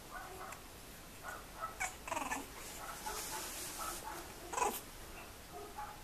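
Young bulldog puppies making small whimpers and squeaks, one wavering call about two seconds in, with two sharp clicks, the louder one near the five-second mark.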